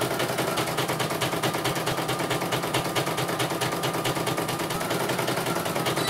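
CNY portable computerized embroidery machine stitching: a rapid, even clatter of needle strokes over a faint steady motor whine. The machine is running normally, with no fault found.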